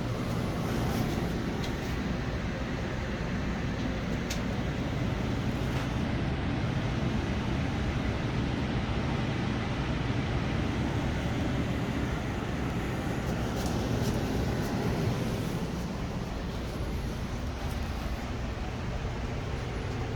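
Furnace running with a steady low rumble and a rush of air, with a few faint clicks.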